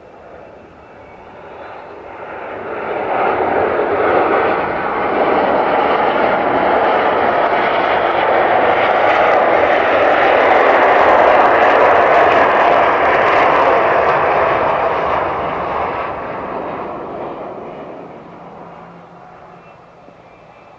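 Twin rear-mounted jet engines of a landing jet roaring in reverse thrust on the rollout. The roar builds over the first few seconds, holds loud for about ten seconds, then dies away.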